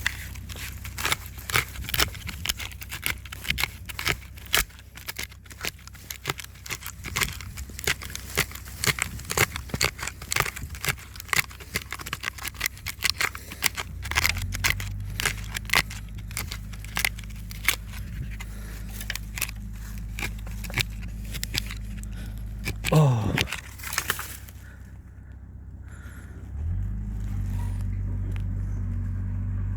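A tree branch scraping and jabbing into soil to dig out a wild deodeok root, with many quick scrapes and crackles. About halfway through a low steady hum comes in, breaks off with a quick falling sweep, and starts again near the end.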